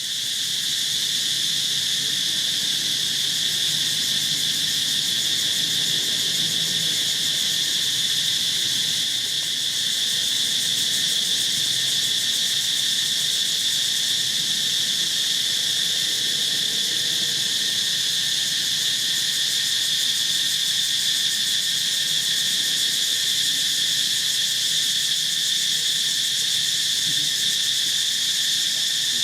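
Steady, unbroken insect chorus: a loud, even high-pitched drone that holds without pause.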